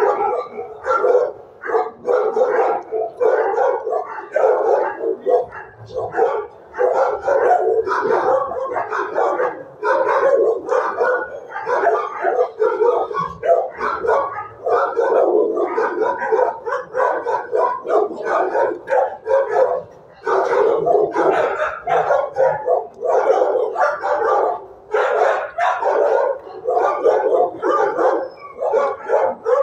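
Shelter dogs barking almost without pause, the barks packed close and overlapping, with some yips and howls among them.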